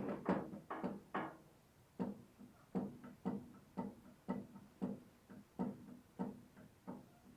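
A series of short knocks, about two a second, each with a brief ringing tone and a quiet gap before the next.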